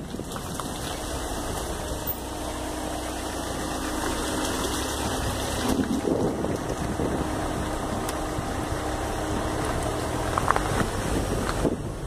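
Car driving along, a steady engine hum and road noise mixed with wind rushing over the microphone.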